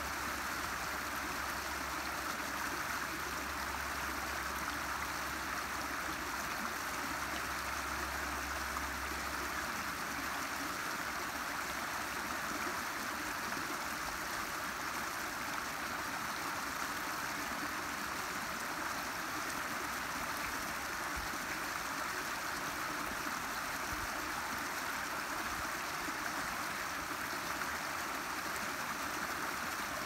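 Small rocky creek running over little cascades and riffles: a steady, even rush of water.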